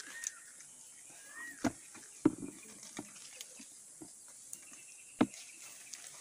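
A few sharp knocks and taps, the loudest about two seconds in and another about five seconds in, with two short chirps in the first second and a half.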